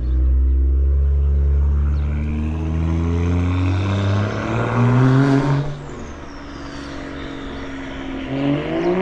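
Car engine revving as the car accelerates, its pitch climbing steadily for about five seconds before it falls away; another rising rev starts near the end.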